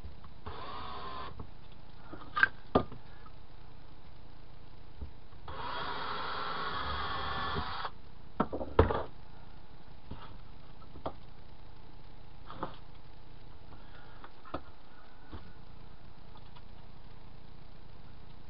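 Cordless drill running in two short spurts, the second about two seconds long with a wavering motor whine, drilling a screw hole in a styrene push rod. Sharp knocks come between and after the spurts and are the loudest sounds.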